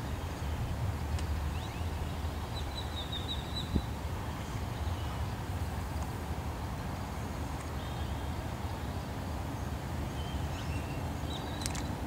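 A few faint, high bird calls, a short chittering run about three seconds in and single notes later, over a steady low rumble of outdoor noise.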